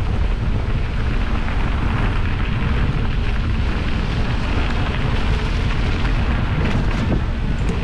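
Wind rushing over the microphone of a GoPro on a moving mountain bike: a steady, heavy rumble, with a few faint ticks near the end.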